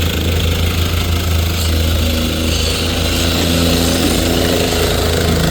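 Engine of a piece of site machinery running steadily at a constant speed, with a strong low hum.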